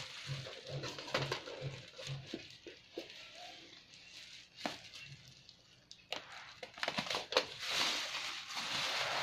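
Black plastic bag wrapping crinkling and rustling as it is pulled and cut open by hand, with scattered sharp clicks and a louder, denser stretch of crinkling near the end.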